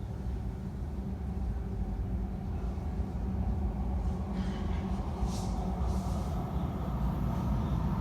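Elizabeth line Class 345 train running in the underground station: a steady low rumble that grows slowly louder, with a couple of brief hisses about halfway through.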